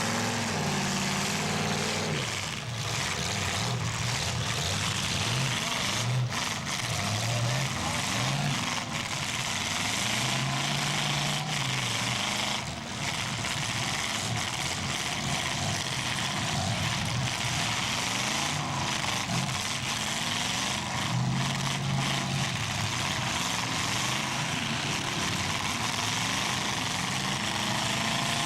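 Engines of full-size demolition derby cars running and revving up and down together, with a few sharp knocks of cars hitting each other.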